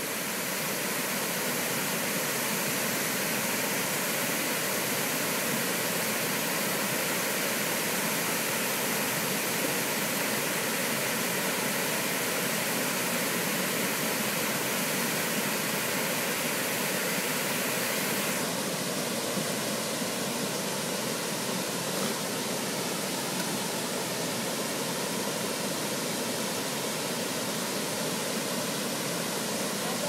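Steady rushing of a wide 15-foot waterfall pouring into the pool below, with no breaks; its hiss dulls a little about two-thirds of the way through.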